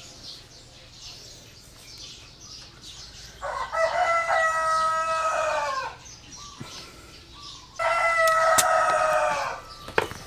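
A rooster crowing twice: two long, drawn-out crows, the first about three and a half seconds in and the second about a second and a half after it ends, each trailing off downward. A few light clicks follow near the end.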